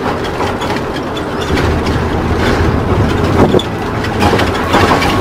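Cab noise of a motorhome driving on the road: engine and tyre noise with frequent rattles and knocks from the body and fittings.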